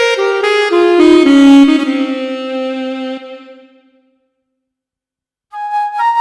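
Yamaha SHS-500 Sonogenic keytar playing a wind-instrument preset with reverb: a quick falling run of notes ends on a held low note that fades away. After a short silence, a new, higher wind-like tone starts near the end.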